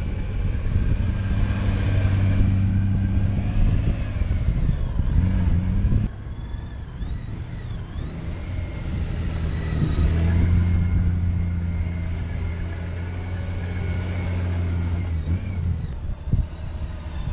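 Honda Gold Wing touring motorcycle engine running at low, steady revs as the bike is ridden slowly through tight cone turns.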